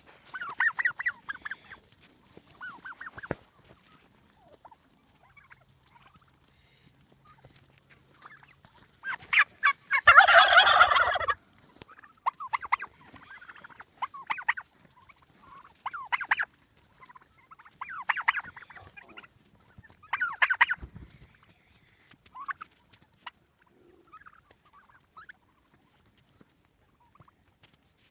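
Heritage turkeys gobbling, a string of short rattling gobbles every second or two, the loudest and longest about ten seconds in.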